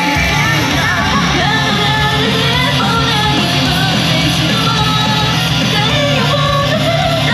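Live idol-group performance of a loud rock-style pop song: guitar-driven backing with singing, and a heavy bass coming in right at the start.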